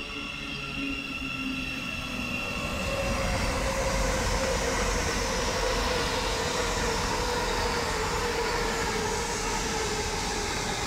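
LNER Azuma train passing through the station at speed: a loud rush of wheel and air noise with a slightly falling whine, which builds about three seconds in. Before that there are steadier tones from an electric unit pulling away.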